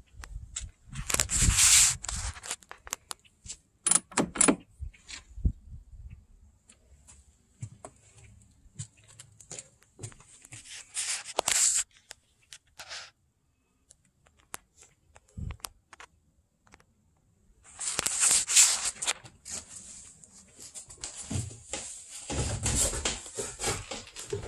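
Scattered knocks, clicks, scrapes and rustling from someone moving about a sailboat and climbing down into its cabin, with several louder rustling bursts about two seconds in, near the middle and about three-quarters of the way through.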